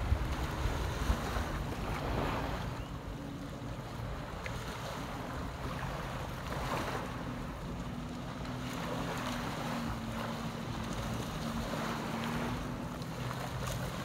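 Small surf washing onto a sandy beach, with a wave rushing in every few seconds, and wind buffeting the microphone. A low steady hum comes in about halfway through and fades out near the end.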